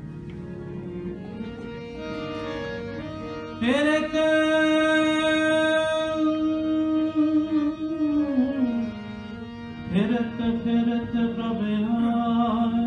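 Sikh kirtan: harmonium playing held notes, joined about three and a half seconds in by a voice singing a long sustained note that slides up into pitch and falls away near the eight-second mark, then a second long sung note from about ten seconds in.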